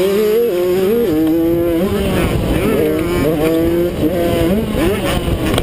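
Kawasaki KX85's two-stroke single-cylinder engine revving hard under race load, its pitch climbing and then dropping back again and again as the rider works the throttle and shifts gears.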